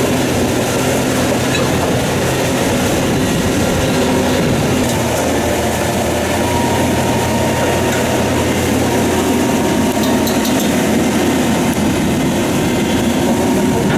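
Heavy machinery running steadily: a low engine hum under dense, even mechanical noise.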